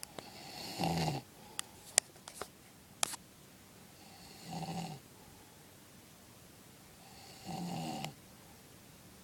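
A man snoring in his sleep: three snores about three seconds apart. Between the first and second snore come a few sharp clicks, the loudest about two seconds in.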